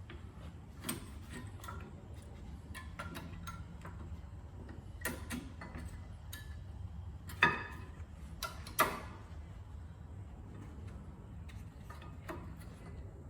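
Scattered metallic clicks and knocks from hands handling a Toyota Camry's rear brake caliper and pads, with two sharper knocks about seven and nine seconds in.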